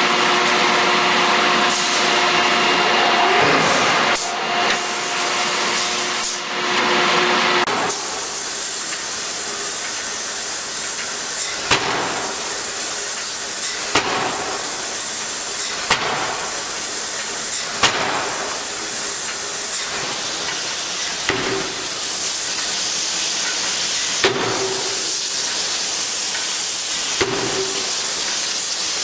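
Heavy forging machinery: first a steady machine hum, then a steady hiss with a sharp hammer blow every two to three seconds as steel is forged.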